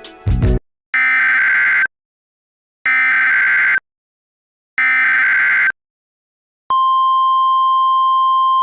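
Emergency Alert System SAME header: three identical bursts of screeching digital data, each about a second long with a second's gap between them. Then a steady single-pitch attention tone starts near the end, announcing a new alert.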